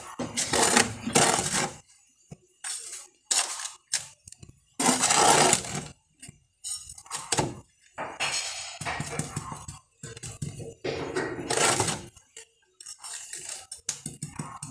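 Sand being scooped into a plastic tub and scraped level: a run of irregular gritty scrapes and rustles, with small knocks of tool and tub.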